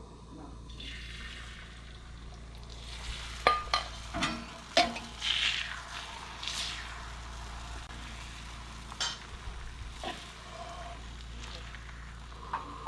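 Steady sizzling on a hot oiled griddle, broken by several sharp clinks and taps of kitchen utensils, most of them in a cluster a few seconds in.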